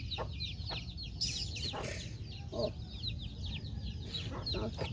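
Birds chirping: many quick, short falling chirps that overlap without a break. There are two brief rustles a little over a second in and again about two seconds in.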